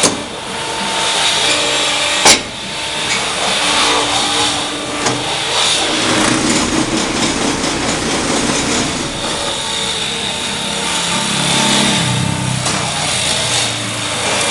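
Automatic paving-block machine running: steady mechanical noise with shifting low hums and one sharp clank about two seconds in.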